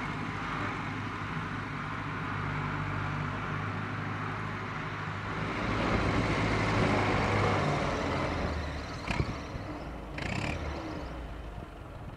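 Farm tractor with a front-end loader running steadily as it hauls a bucket of dung; the engine grows louder about halfway through, then eases. Two short knocks come near the end.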